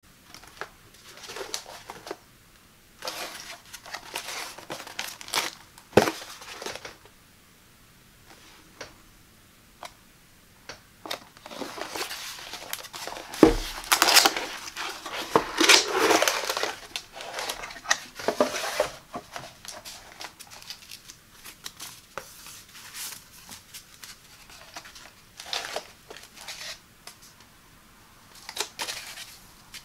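Corrugated cardboard box being handled and opened by hand: taps and knocks on the cardboard, with a sharp knock about six seconds in and another near the middle, then a long stretch of scraping and crinkling as the flap is worked open and the contents slid out. Near the end the glass scale is lifted from its foam packing.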